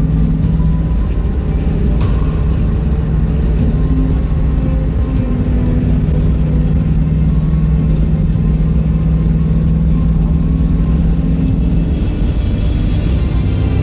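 A car being driven: a steady engine drone with road noise, its pitch shifting slightly near the end.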